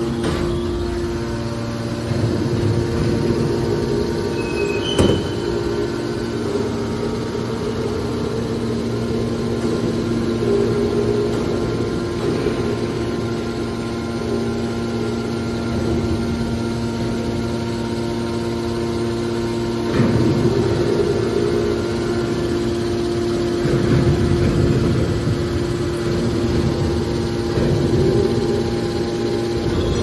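Electric motors and hydraulic pump of a scrap-metal baler running with a steady hum and whine, with a few swells of louder noise, mostly in the second half, and one sharp knock about five seconds in.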